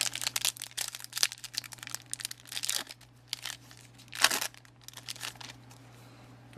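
A trading card booster pack wrapper being crinkled and torn open, with irregular crackling throughout and a louder rip about four seconds in.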